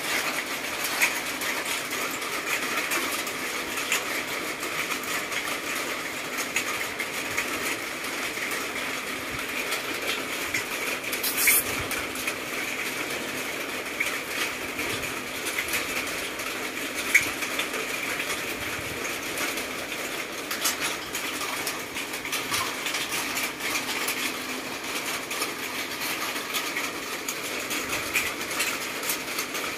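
Steady rain falling on the enclosure roof: a constant hiss with a dense patter of drops. A brief sharper rattle comes about eleven seconds in.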